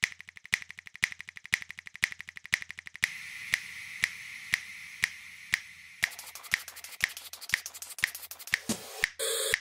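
Sharp, evenly spaced clicks, about two a second, like a ticking clock, with fainter rapid ticks between them. A soft hiss joins them about three seconds in.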